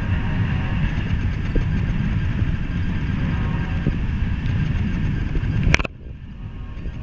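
Loaded coke hopper cars of a freight train rolling past: a steady rumble of steel wheels on the rails with a faint high ringing. Near the end a sharp click comes, and the sound suddenly drops much quieter.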